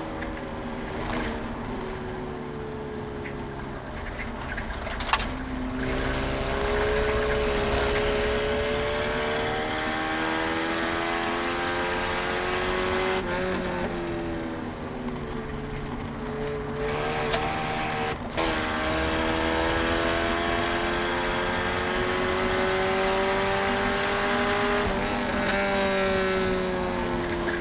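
Eagle Talon's four-cylinder engine heard from inside the cabin while being driven hard, its note climbing slowly under load and dropping at gear changes about halfway through and again about two-thirds of the way in. A couple of sharp knocks cut through, about five seconds in and at the second drop.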